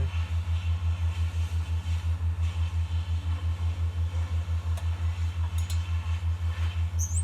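A low machine hum pulsing evenly about five or six times a second, with a few faint clicks of hands working on the snowblower's key-switch wiring about five seconds in.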